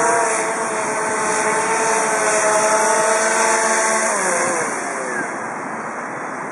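Quadcopter drone's propellers whining, several steady tones over a rushing hiss. About four seconds in the drone is caught by hand and the whine drops in pitch as its motors slow.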